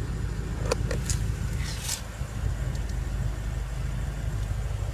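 2015 BMW M6 Gran Coupe's twin-turbo V8 idling with a steady low rumble, with a couple of light clicks and a short rustle in the first two seconds.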